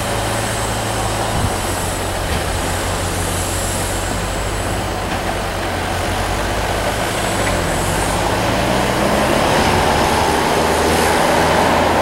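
Tractor's diesel engine running steadily as it pulls a silage wagon through standing corn, the machinery noise swelling toward the end.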